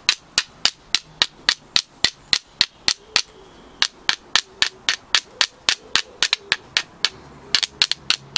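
High-carbon steel striker struck again and again against a flint: a fast run of sharp, bright clicks, about four to five a second with a couple of brief pauses, as it throws sparks for a flint-and-steel fire.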